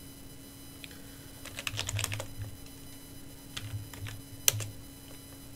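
Typing on a computer keyboard: a quick run of keystrokes, a pause, a few more, then one sharper, louder key press about four and a half seconds in, over a steady low hum.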